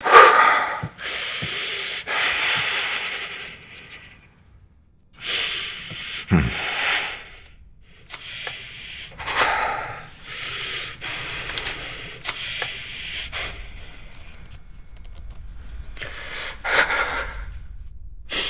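A man breathing heavily and raggedly in long, loud gasps, one every couple of seconds. About six seconds in there is a short low falling sound.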